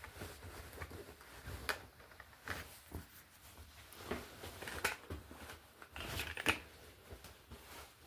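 Movement noise of a person walking with a handheld camera: scattered soft footsteps, light knocks and rustles at irregular intervals, the loudest knock about six and a half seconds in.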